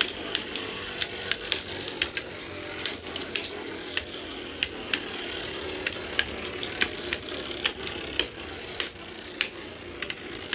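Spinning Beyblade Burst tops, 3D printed, whirring in a stadium with irregular sharp clacks as they collide, several a second at times.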